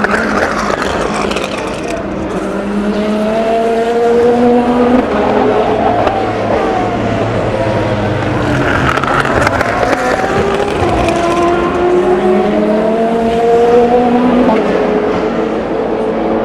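Race cars at full throttle accelerating out of a slow corner, one after another. Each engine note climbs steadily in pitch and breaks off at an upshift, with a steady tyre and exhaust rush underneath.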